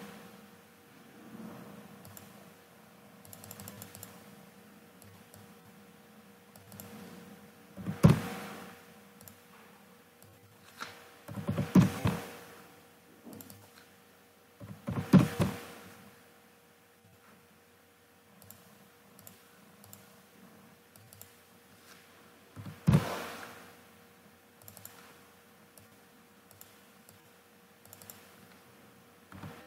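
Computer keyboard and mouse clicks picked up by the recording computer's own microphone: four louder knocks spread through, with soft clicks and taps between, over a faint steady hum.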